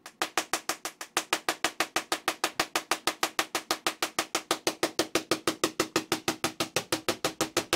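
Post-Soviet Tesla coil throwing spark streamers from its toroid top load: a steady train of sharp cracks, about eight a second. The rate is set by the coil's interrupter (BPS) knob. The crackle starts abruptly as the coil fires up.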